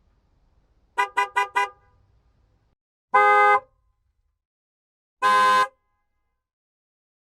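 Car horn honking: a burst of four quick toots about a second in, then two separate single honks of about half a second each, roughly two seconds apart.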